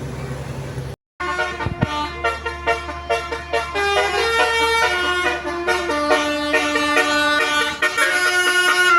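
Steady low engine and road hum, then after a brief cut about a second in, a Basuri telolet horn, a set of bus air horns, plays a melody of quickly changing notes, some held longer, over and over.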